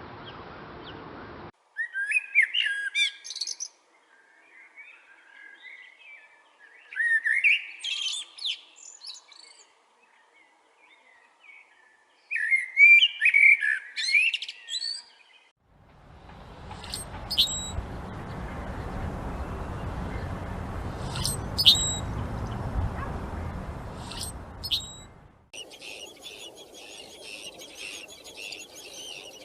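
Small birds singing and chirping. First come three separate warbling song phrases a few seconds apart. Then, over a steady background rush, a few short, very high chirps, and near the end a dense run of high-pitched twittering.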